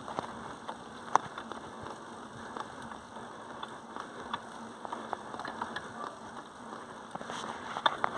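Mountain bike tyres rolling over a wet, gritty trail on a climb: a steady crackling hiss with many scattered sharp clicks and pops, a louder click about a second in and a few near the end.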